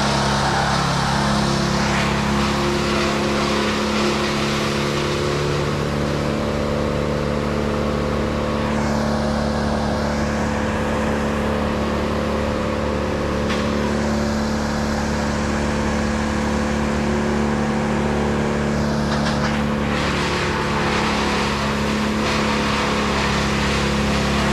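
An engine running steadily at a constant speed, with no clear revving up or down.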